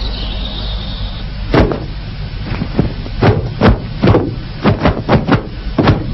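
An irregular, quick series of about a dozen sharp knocks and thuds, starting about a second and a half in, over a steady low rumble.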